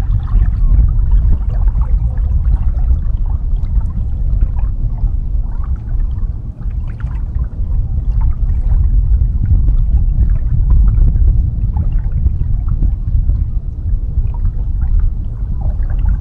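Water splashing and gurgling against a small boat's hull over a steady low rumble, dipping briefly about six seconds in.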